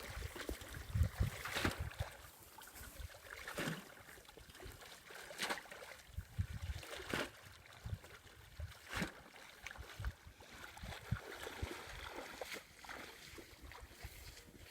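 Water sloshing and splashing in irregular strokes, roughly one every one and a half to two seconds, over a low rumble.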